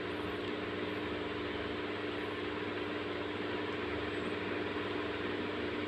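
Steady mechanical hum with a constant hiss behind it, unchanging throughout, with a few faint high chirps now and then.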